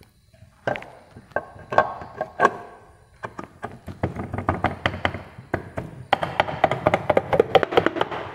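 Aluminium timing cover of an old Royal Enfield Bullet engine being pressed and tapped onto the crankcase by hand: a run of light metallic taps and clinks, a few at first and coming thick and fast near the end.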